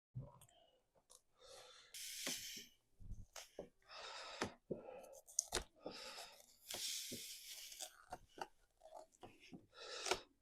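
Faint, irregular scraping and crinkling of a squeegee pushing vinyl decal film onto a Lexan panel while the paper backing is peeled and rolled back, with a few short clicks in between.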